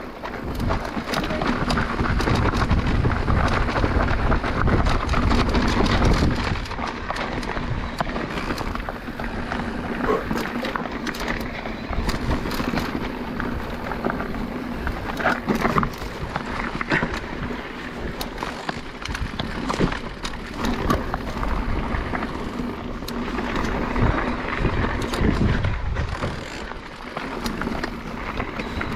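Mountain bike (an e-MTB) ridden over a rough trail: tyre noise on loose stones, with many quick knocks and rattles from the bike. Wind buffets the microphone, heaviest in the first few seconds.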